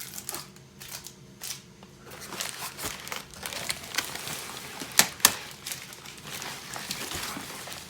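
Bubble wrap being unwrapped by hand: plastic crinkling and rustling with irregular clicks, and two sharp snaps close together about five seconds in.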